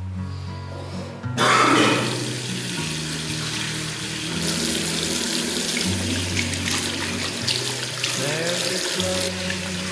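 Background music with low, held bass notes; about a second and a half in, a steady rush of running water starts suddenly and continues under the music.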